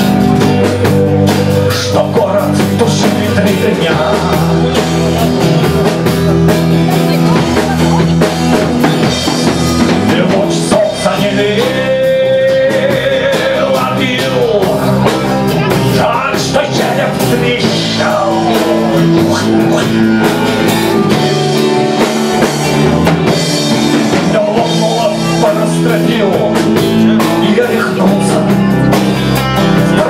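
Live band music: violin, acoustic guitar and drum kit playing together, with a man singing in places.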